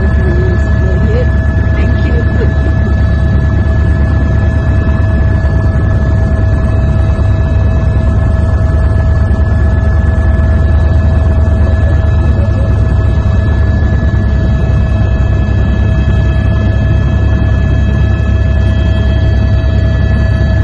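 Helicopter noise heard inside the cabin: a loud, steady low drone of rotor and engine, with constant whining tones over it.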